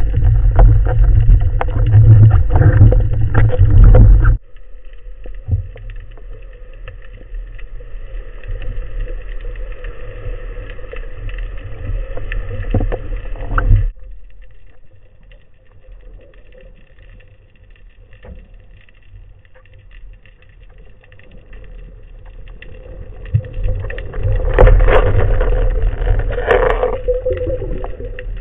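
Underwater noise picked up by a camera in its housing: a heavy low rumble of water moving past, which drops off abruptly about four seconds in, stays quieter with faint steady tones, and swells again near the end.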